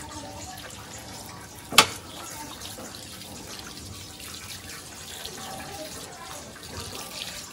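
Water running from a garden hose and splashing onto wet paving and a motorbike's front wheel, with a single sharp knock about two seconds in.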